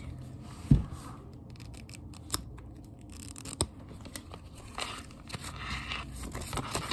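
Hands handling things right at the phone's microphone: a heavy thump just under a second in, a couple of sharp clicks, then scratchy rustling toward the end.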